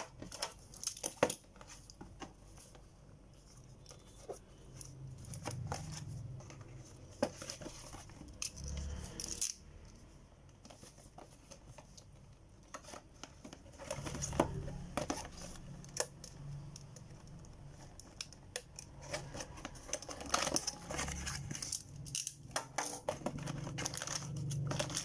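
Cardboard Beyblade toy box being handled and opened by hand: scattered taps, scrapes and tearing as the box is turned over and its flaps are pulled open, busiest in the second half.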